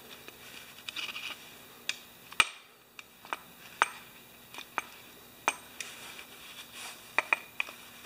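Small hand tool clicking and scraping against a Briggs & Stratton carburetor and primer housing as the torn old primer gasket is picked away. Irregular sharp ticks, a few light scrapes about a second in, the loudest click about two and a half seconds in.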